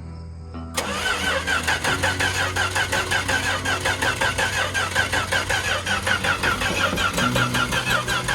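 Starter cranking the LS V8 swapped into a Dodge D100, kicking in about a second in with a steady, even chug that does not change in pace, the engine turning over without catching.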